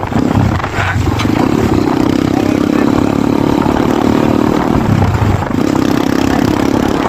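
Kayo T2 dirt bike engine running at a steady pitch, dropping off briefly about five seconds in before picking back up.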